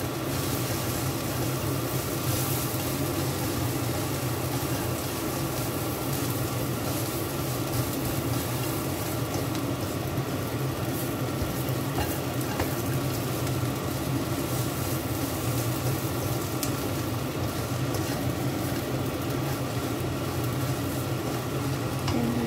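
Chopped papaya leaves and fried anchovies stir-frying dry in a non-stick pan over a gas burner: steady sizzling with a silicone spatula scraping and tossing them around. A steady low hum runs underneath.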